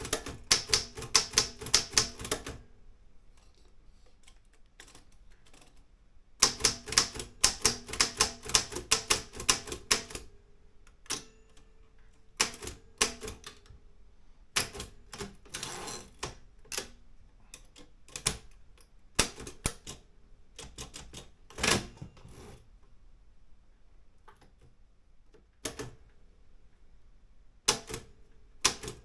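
Olympia M8 manual typewriter being typed on: a fast run of key strikes at the start, a pause of a few seconds, another fast run, then scattered single strikes and short groups, and a final quick run near the end.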